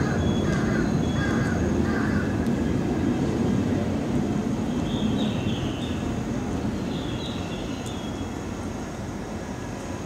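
A low, even rumble that slowly fades, with bird calls over it: a few early on and more about halfway through.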